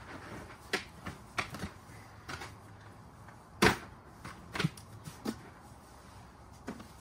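Irregular sharp knocks and clicks of camping gear being handled while pitching a tent, about a dozen in all, the loudest a little past halfway.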